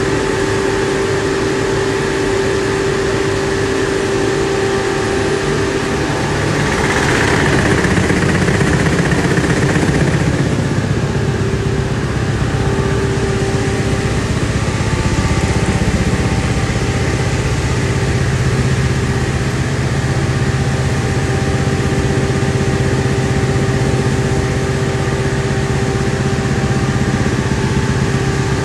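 Rug-dusting machine (a Rug Badger) running, beating dust out of a rug: a loud, steady motor hum with a constant whine, slightly louder about seven to ten seconds in.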